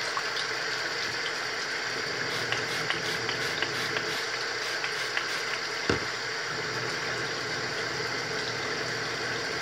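Bathroom tap running steadily into a sink while a makeup brush is rubbed against a wet silicone cleaning glove, with scattered small ticks and one sharp knock about six seconds in.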